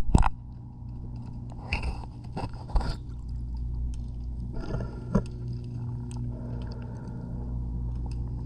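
A steady low machine hum heard underwater, with a few short scrapes and knocks against a boat hull.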